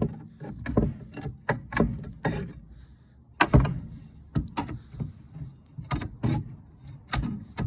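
Steel pry bar working a nailed board off a wooden pallet: a string of irregular knocks and clacks of metal on wood, the loudest about three and a half seconds in.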